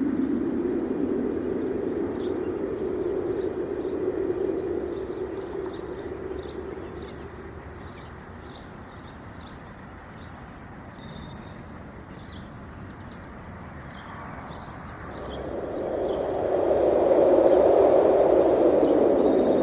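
Wind rushing, dying away over the first several seconds and swelling again to its loudest near the end. In the lull, small birds chirp many times in quick short notes.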